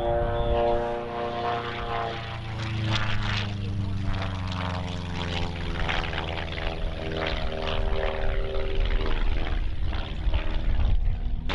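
Propeller engine of a Long-EZ pusher canard plane droning, its pitch sliding slowly down over the first few seconds as the plane passes.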